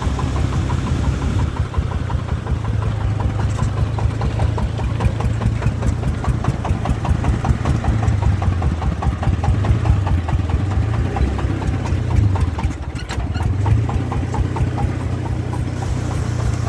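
Single-cylinder diesel engine of a three-wheeled công nông farm truck chugging steadily in a fast, even beat as the truck drives slowly along a dirt track, hauling a load of soil.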